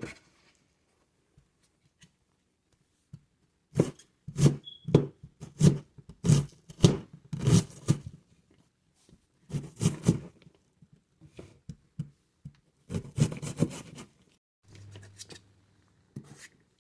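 Knife chopping an onion on a cutting board: a quick run of about ten chops, then a few shorter groups of chops with pauses between.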